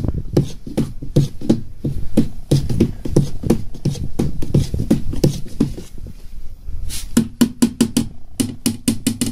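A spoon stirring fermenting grape must in a plastic tub, punching the floating cap of skins back down: a rhythmic sloshing stroke about three times a second, turning to quicker, sharper clicks near the end.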